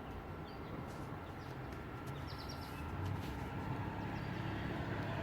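Outdoor ambience: a steady low rumble with a few faint, quick bird chirps about two seconds in.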